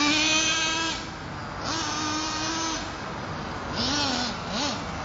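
Nitro RC monster truck's small two-stroke glow engine running at high revs as a high-pitched buzz. It is held steady for about a second twice, drops back in between, and gives quick rising-and-falling throttle blips near the end.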